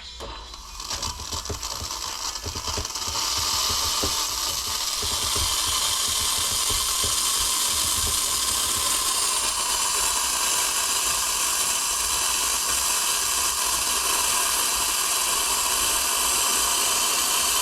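Steam wand of a De'Longhi espresso machine being warmed up before frothing: it sputters and crackles for the first few seconds as the level builds, then settles into a steady, loud hiss of steam.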